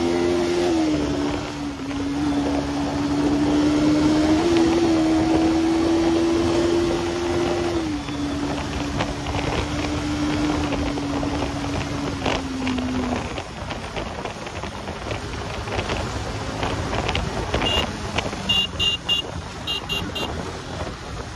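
Bajaj Pulsar NS200's single-cylinder engine running at a steady cruise, its note stepping slightly up and down a few times, then sinking into wind and road noise about halfway through. Several short horn beeps near the end.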